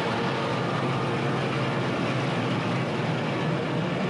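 Diesel tractor and potato harvesting machinery running steadily in the field: an even, continuous mechanical noise with a low hum underneath.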